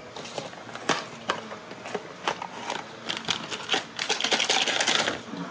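Toy packaging being handled and opened: scattered clicks and taps of a small cardboard box and plastic wrapper, with a burst of crinkling about four seconds in.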